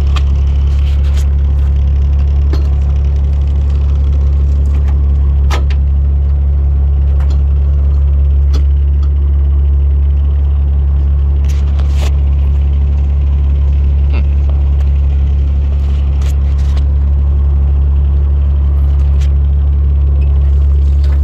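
Fire truck's Cummins diesel engine idling with a steady low hum, with scattered light clicks and knocks from its metal compartment doors and latches being handled.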